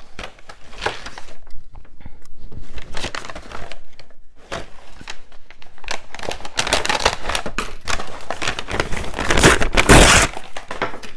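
Brown kraft paper crinkling and rustling as it is folded and torn by hand, in irregular bursts, with the loudest rip about ten seconds in.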